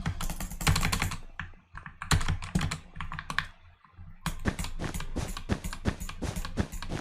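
Lubed mechanical keyboard being typed on: a quick flurry of keystrokes at the start, scattered presses, then from about four seconds in a steady run of about four keystrokes a second. The switches are lubed and the stabilizers greased, with foam added inside the case.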